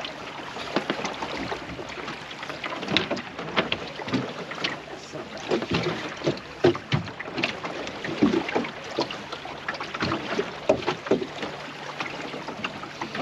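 Small waves slapping and splashing irregularly against a plywood sailing dinghy's hull as it moves along under sail, a few short splashes a second over a steady wash of water.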